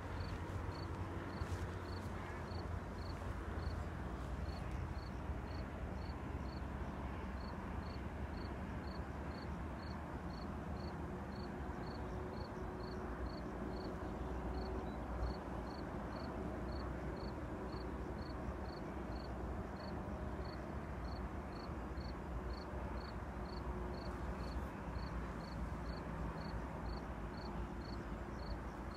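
Lakeshore outdoor ambience: a steady low rumble, with a high, short chirp repeated evenly about twice a second.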